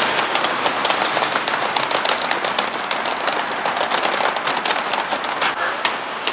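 Steady crackling, hissing street noise heard while walking a city sidewalk, full of small clicks. A faint high tone comes in near the end.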